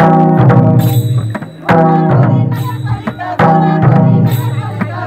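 Several Tharu madar, large two-headed barrel drums, beaten together in a Sakhiya dance rhythm, the pattern starting over with a loud stroke about every 1.7 seconds.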